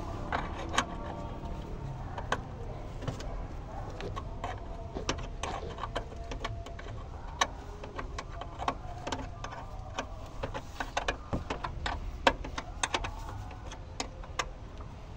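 Hand tools clicking and clinking against metal at irregular intervals, typical of wrench work on a truck, over a steady low rumble.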